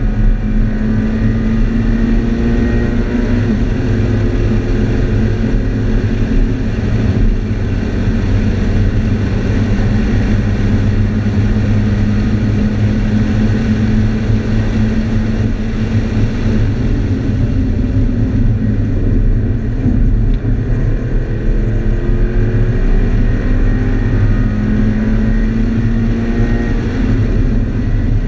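A Scion FR-S's 2.0-litre flat-four boxer engine, heard from inside the cabin with tyre and wind noise, driven at speed on a circuit. Its note is loud and steady, rising and easing off several times as the car accelerates down the straights and slows for the corners.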